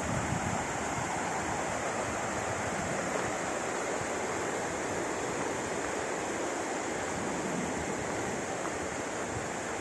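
Mountain stream rushing over rocks, a steady rushing noise.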